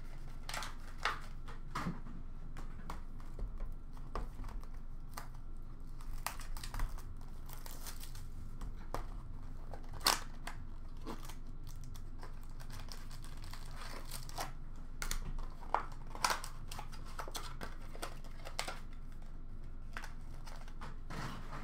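Foil wrappers of 2021 Bowman Chrome baseball card packs being torn open and crinkled, with cards handled and set down, heard as scattered short crackles and clicks. A steady low room hum runs underneath.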